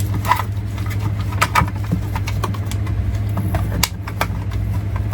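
Steady low hum of an idling engine, with scattered clicks and knocks as a plastic door panel held by Torx screws is worked loose, one sharp click a little under four seconds in.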